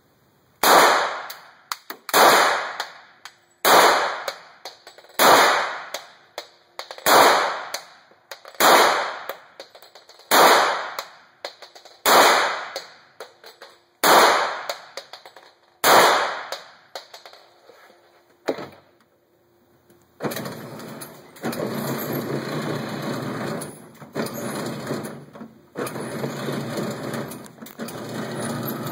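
Semi-automatic pistol fired ten times at a steady pace, a shot every second and a half to two seconds, each crack echoing off the concrete lane of an indoor range. After a pause, a steady mechanical running noise starts, the electric target carrier bringing the paper target back up the lane.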